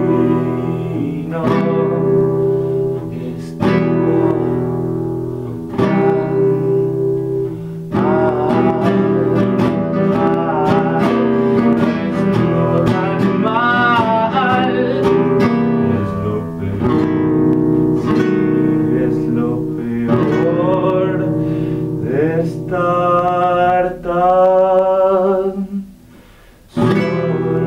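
Acoustic guitar strummed in a steady pattern while a man sings over it in places. Near the end the playing stops briefly, then one strong strum rings out.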